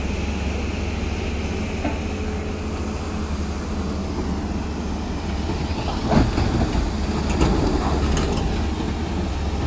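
Diesel engines of working hydraulic excavators running with a steady low rumble, with a few short knocks about six to eight seconds in.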